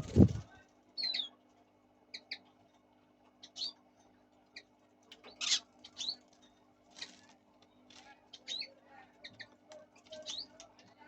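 Fischer's lovebirds giving short, sharp, high chirps, scattered irregularly, some sliding quickly in pitch. A loud thump comes right at the start.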